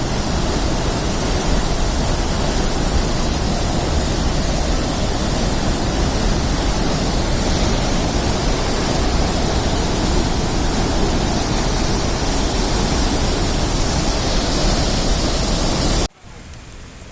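Loud, steady rush of heavy floodwater, an even roar with no breaks. It drops suddenly to a quieter rushing near the end.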